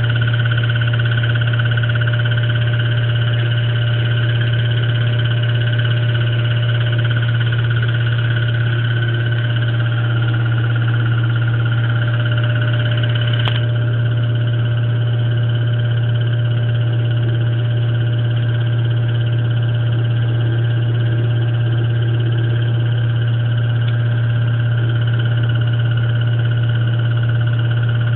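Electrolux LSE09 washing machine spinning, a loud steady low hum with a high whine over it that does not change, with one faint click about halfway through. This is the abnormal noise the machine makes during its spin cycle.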